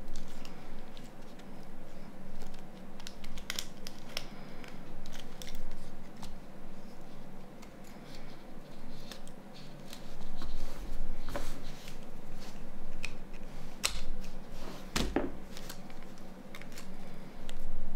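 Irregular small clicks, snaps and scraping of a Nokia N93's plastic housing parts being pried and pulled apart by hand, with two duller knocks about three-quarters of the way through.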